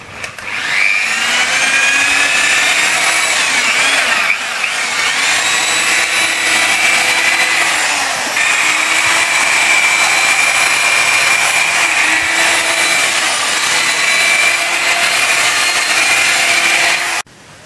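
Electric rotary polisher with a soft foam pad buffing car paint with polishing compound: a steady high motor whine that rises as the tool spins up about half a second in, sags in pitch briefly a few times, and stops suddenly near the end.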